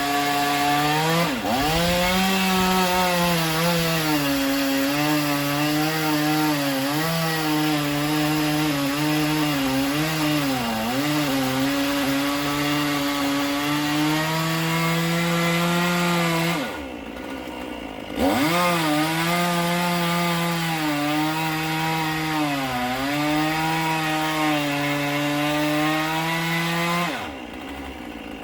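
Two-stroke chainsaw at full throttle cutting through silver maple, its engine note sagging and recovering as the chain loads up in the wood. Just past halfway it eases off for about a second and a half, then cuts again, and it eases off once more near the end.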